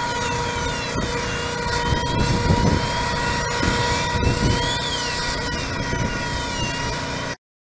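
Steady engine-driven drone with a high, even whine, typical of a firefighters' smoke-ventilation fan running at a building entrance, swelling louder about two and a half seconds in. A higher tone sweeps up and down now and then over it. The sound cuts off abruptly just before the end.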